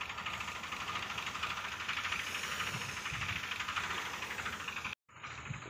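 Engine-driven spray pump running steadily under a continuous hiss of pressurised spray from the hose line, broken off abruptly about five seconds in.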